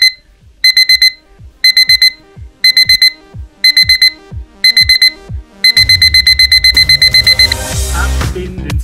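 Digital alarm clock beeping in quick groups of four, about once a second. About six seconds in, the beeps run together into a faster steady string as electronic dance music with a heavy bass beat comes in. The beeping stops shortly after while the music plays on.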